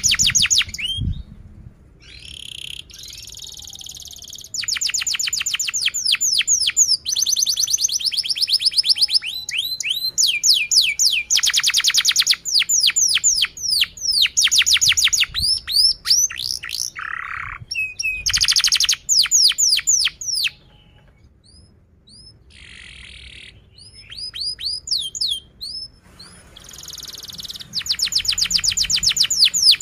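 Domestic canary singing a long song: fast trills of repeated high notes that each fall in pitch, in phrases separated by short pauses, with a few buzzier rolls. The song goes quieter briefly near the start and again about two-thirds through.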